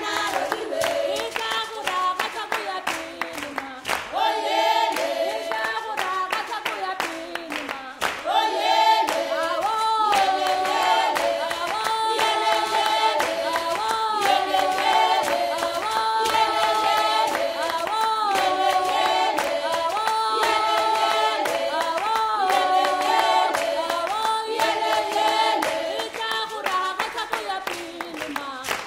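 Traditional Tswana choir singing a cappella in call-and-response style over rhythmic hand clapping.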